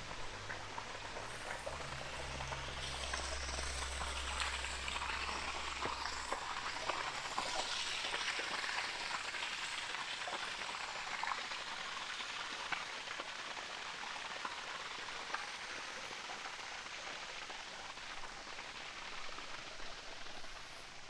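Steady splashing and trickling of water, as from a spring spilling over a small dam, with a low rumble in the first few seconds.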